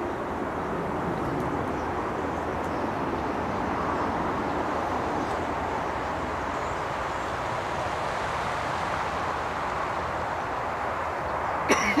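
A large roosting flock of common starlings chattering together as one steady, dense din. Just before the end come two brief knocks.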